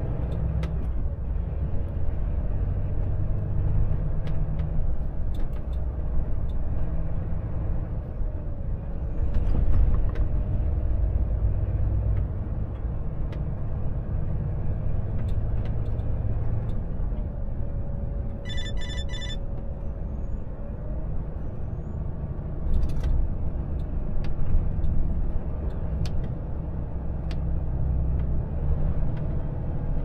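Volvo FH truck on the move: a steady low engine drone with road noise. About two-thirds of the way through there is a short run of electronic beeps.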